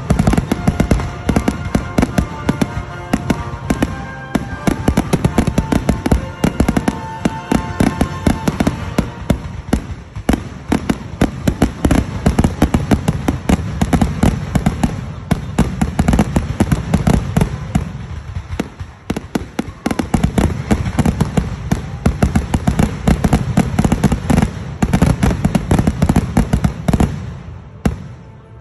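Aerial fireworks shells bursting in a dense, rapid barrage of bangs and crackles, the grand finale of a display, which stops abruptly about a second before the end.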